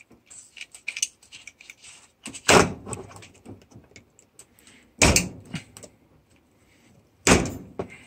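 Parts being handled and set down on a workbench, among them bent steel frame rails: three sharp knocks, each about two and a half seconds after the last, with light clicks and rattles between.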